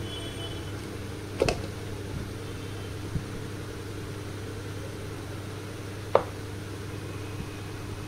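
A few sharp clicks as the lid of a steel mixer-grinder jar is taken off and put back on, over a steady low electrical hum.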